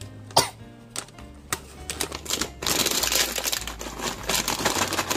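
A few sharp clicks from a plastic crisp bag, then from about halfway a dense, continuous crinkling and rustling of the bag as it is handled, over background music with low steady bass notes.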